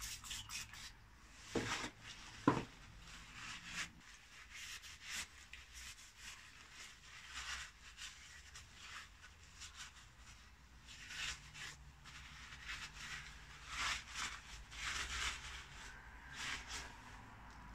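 Paper towel rubbing and wiping greasy inner CV joint parts clean, in irregular scratchy strokes. Two sharp knocks of metal parts come about two seconds in.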